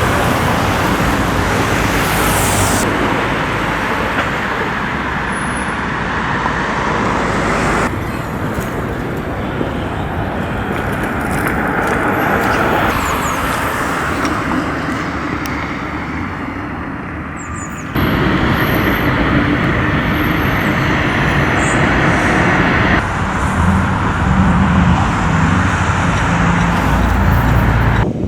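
Loud, steady train running noise with no speech. The sound changes abruptly about every five seconds, where one short recording is cut to the next.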